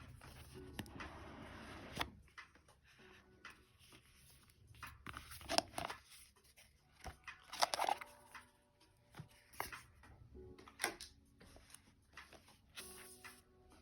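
Close handling of an oracle card deck and its packaging during unboxing: rustling for about the first two seconds, then scattered clicks and taps of cards and box.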